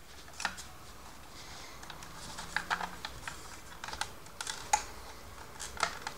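Irregular small plastic clicks and taps from a fire alarm horn being worked at and pried with a small tool, trying to unclip it from its mounting skirt. The horn stays stuck; the owner suspects the release clip is broken.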